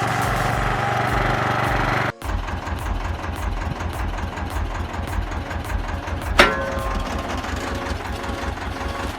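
Small engines running. About two seconds in, a sudden cut switches to a homemade wood chipper's engine running with a steady low beat. A brief sharp, high sound comes about six seconds in.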